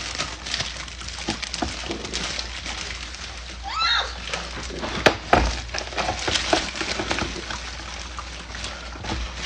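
Ice cubes clinking and clattering into a cup, with liquid sloshing as the iced coffee maker brews, and one sharp knock about five seconds in.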